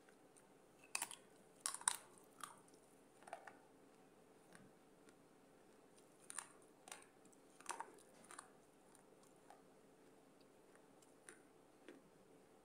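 Close-miked biting and chewing of a piece of clay pot: sharp, brittle crunches come in two clusters, about a second in and again around six to eight seconds, then fade to a few faint chews near the end.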